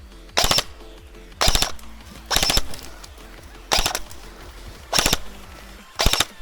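Airsoft gun firing six short automatic bursts of a few rounds each, about one burst a second, over faint background music.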